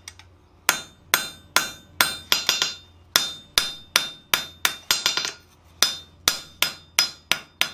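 Blacksmith's hand hammer striking red-hot flat bar stock on an anvil with ringing blows, about two to three a second, starting after a brief pause. He is knocking the corners off the bar's end at a 45-degree angle to round it before slot punching, so the end won't split open into a 'carp's mouth'.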